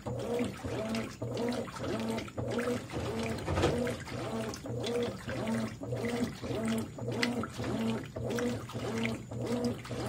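Consul 13 kg Maxi Economia (CWE13AB) top-load washing machine agitating a full load in water: water sloshing and churning, with the motor's hum rising and falling in a steady back-and-forth rhythm about every two thirds of a second, and one louder splash midway.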